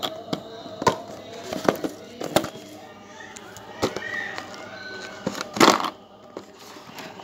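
Hands handling a lavalier microphone's cable and small plastic parts on a tabletop and packing them into a nylon drawstring pouch: a string of clicks and knocks, with the loudest rustle about five and a half seconds in.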